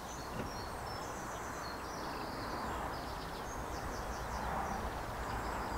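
Steady outdoor background noise with small birds chirping repeatedly in short phrases.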